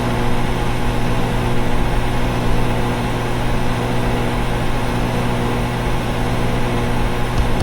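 Neighbours' outdoor central air conditioners running: a steady hum with a strong low drone over even fan noise.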